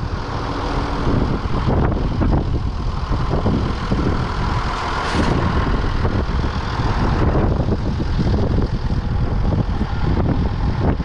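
Large crane truck's diesel engine idling steadily, with a short burst of hiss about five seconds in.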